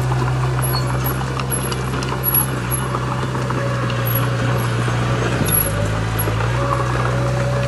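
Heavy diesel construction machinery running steadily under load, its low engine drone shifting pitch slightly about five and a half seconds in, with scattered small clicks and knocks.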